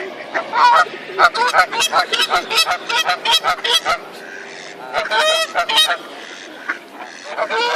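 Geese honking: a rapid run of loud calls, another burst about five seconds in, and one more near the end.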